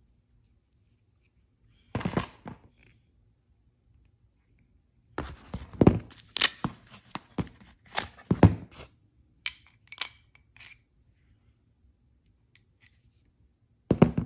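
Clicks, scrapes and knocks of a hatchet and its black plastic sheath being handled, and the sheath being worked off the blade. They come in a short burst about two seconds in and a longer busy stretch from about five to eleven seconds in.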